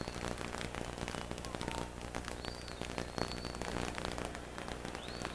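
Boxing arena crowd between rounds: a steady crackly din with several sharp whistles that rise and hold, near the start, in the middle and near the end.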